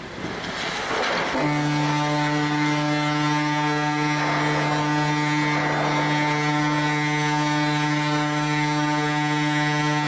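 Ship's horn sounding one long, steady, deep blast, starting abruptly about a second and a half in after a rush of wind, as the vessel is run onto the beach for scrapping.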